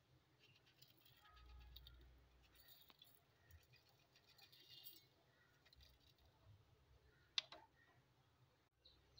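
Faint ticking and patter of salt grains sprinkled into a metal bowl of peeled bananas, with one sharper click near the end.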